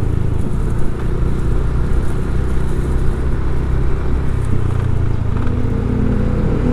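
Motor vehicle engine running steadily with road noise while travelling along a road, its engine note rising about five seconds in as it speeds up.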